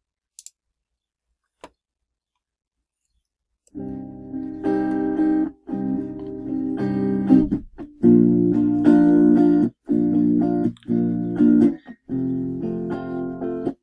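Near silence with a couple of faint clicks, then about four seconds in a recorded guitar track starts playing back through speakers: strummed guitar chords with short breaks between them.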